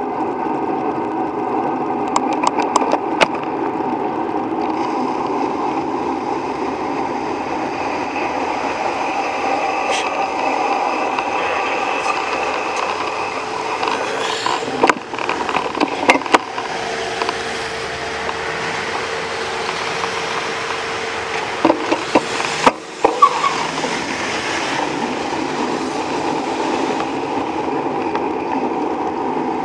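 Steady road and wind noise from a bicycle riding through slow city traffic, with the engines of nearby cars around it. A few sharp knocks and clicks come about halfway through and again about three-quarters of the way in.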